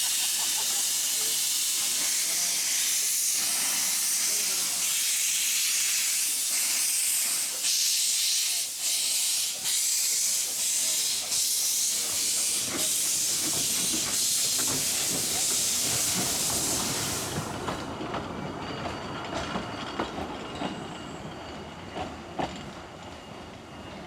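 Narrow-gauge Falcon saddle tank steam locomotives hissing steam loudly. The hiss cuts off suddenly about seventeen seconds in, leaving a quieter clatter of the train running over the rails.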